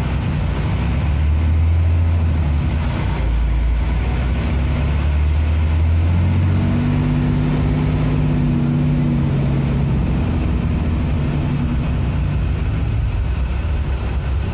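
City bus engine running, heard from inside the moving bus as a loud, steady low rumble. About halfway through, the engine note rises for a few seconds, then settles again.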